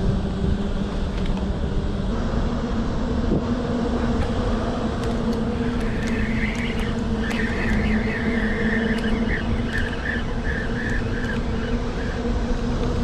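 A steady, low mechanical hum, like a motor running at constant speed, over a low rumble of wind on the microphone.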